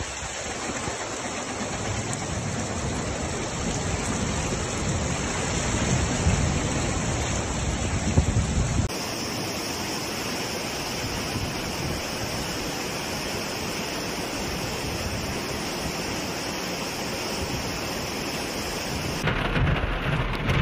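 Floodwater rushing through the street with heavy rain, a steady wash of water noise. The sound changes abruptly about nine seconds in and again near the end, where separate phone clips are cut together.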